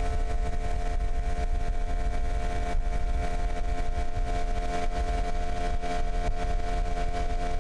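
Outboard motor running at a steady speed, an even drone with no change in pitch.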